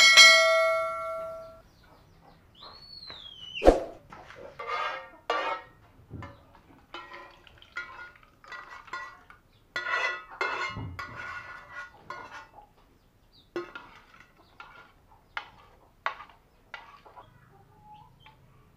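Metal spoon and pan clinking and scraping against pots and bowls in irregular clatters while porridge is cooked and served. It opens with a single bell-like ding that rings for about a second and a half, and there is a sharp knock about four seconds in.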